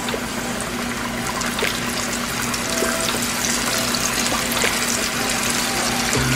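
Coated chicken nuggets frying in hot peanut and extra virgin olive oil: a steady sizzle dotted with small pops and crackles, growing slightly louder.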